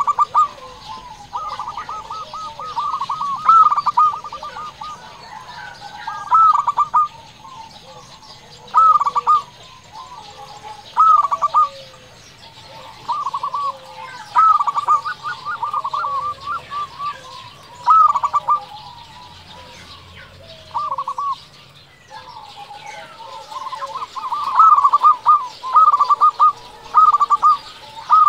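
Local-strain zebra dove (perkutut) in full song: phrases of quick, rolling cooing notes, repeated every second or few, with a long unbroken run of phrases near the end.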